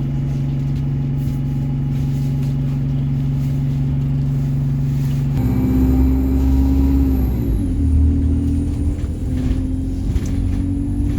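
Bus engine idling with a steady hum, then its note changes about five seconds in to a deeper, pulsing rumble as it pulls away under power.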